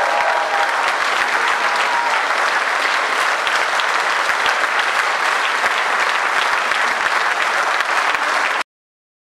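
Audience applauding, a dense clatter of many hands, with the band's last note dying away in the first second; the applause cuts off abruptly near the end.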